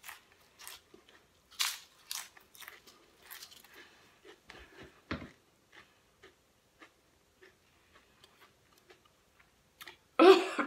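Pringles potato chips being bitten and chewed by a mouthful: sharp crunches come thick and fast for the first few seconds, then thin out to faint chewing clicks. A short, louder burst comes near the end.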